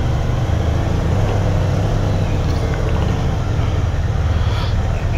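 Motorcycle engine running at low revs, a steady low hum with no revving.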